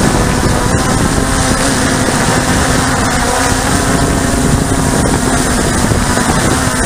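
Radio-controlled model aircraft's motor and propeller running at a steady pitch, heard from the onboard camera, with wind rushing over the microphone.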